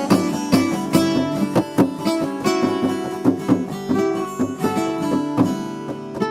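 Acoustic guitars playing an instrumental jam: a steady stream of picked notes ringing over held chords.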